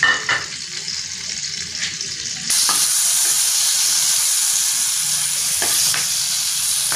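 Whole green chillies, salted, sizzling as they fry in hot ghee. The sizzle gets suddenly louder about two and a half seconds in, with a few light knocks.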